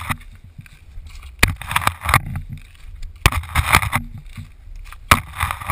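Hiking footsteps on a trail covered in dry leaves, carried through the housing of the camera he holds: three sharp knocks of the hiking pole planted about two seconds apart, each followed by a burst of leaf rustling and crunching.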